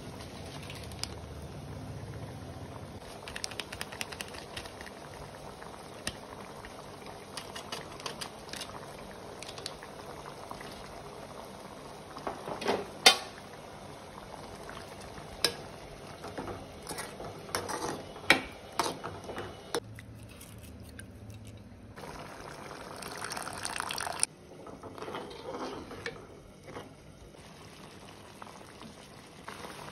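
Sambar simmering and bubbling in a kadai, a steady bubbling hiss. Scattered sharp clicks and knocks sound over it, the loudest near the middle.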